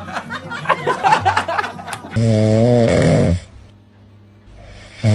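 A pet snoring loudly in long, rasping snores, one about two seconds in and the next starting near the end, with a quiet breath between them. A couple of seconds of voice-like sound come before the first snore.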